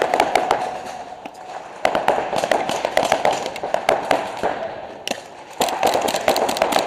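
Paintball markers firing rapid strings of shots, in three bursts with short pauses about a second in and about five seconds in.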